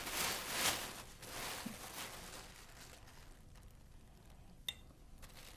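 A plastic bag crinkling and rustling as hands work inside it, fading out over the first second or two, then quiet room tone with one sharp click near the end.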